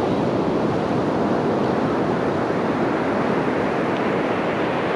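Sea surf breaking on the beach, a steady even rush with wind on the microphone.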